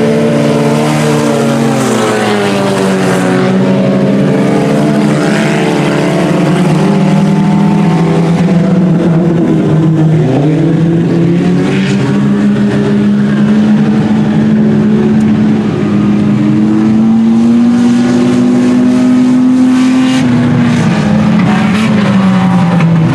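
A pack of IMCA Sport Compact race cars at racing speed, their four-cylinder engines rising and falling in pitch as the drivers lift into the turns and get back on the throttle down the straights.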